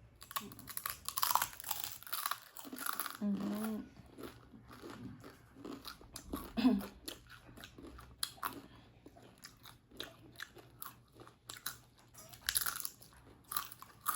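Crunching and chewing of Jolo chips, Carolina Reaper–seasoned tortilla chips, bitten close to the microphone, a rapid scatter of sharp crunches. A couple of short hummed vocal sounds come through the chewing.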